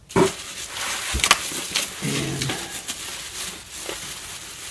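Bubble wrap and cardboard rustling and crackling as hands rummage through a packing box, with many small sharp crinkles and clicks over a steady rustle.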